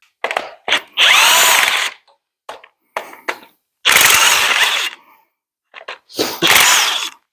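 Handheld power tool run in three bursts of about a second each, its motor whine rising and falling, with short clicks and rattles between, loosening bolts during an engine teardown.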